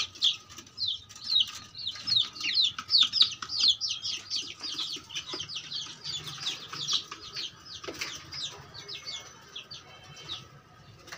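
A flock of young Aseel and Rhode Island Red chicks peeping, many short high descending peeps overlapping several times a second. The peeping is densest and loudest in the first half and thins out after about five seconds.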